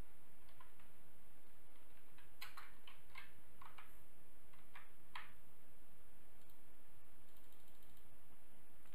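Computer keyboard keystrokes: a scattered run of separate key clicks, most of them in the middle few seconds, then a few fainter clicks near the end, over a steady background hiss.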